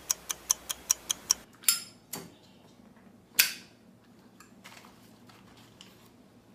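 Ticking sound effect for a TV time-stamp title card, about five sharp ticks a second, stopping about a second and a half in. Two short whooshes and a loud swishing hit, the loudest sound, follow about three and a half seconds in, then faint room tone.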